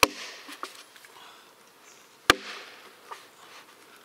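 Axe blade striking a basswood log twice, about two seconds apart, being driven into the wood to start a split.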